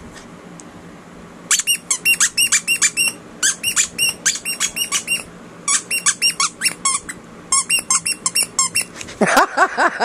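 Rapid bursts of short, sharp, high-pitched squeaks, several a second in groups, like a squeaky dog toy being squeezed over and over. Near the end a short burst of rising, voice-like cries takes over.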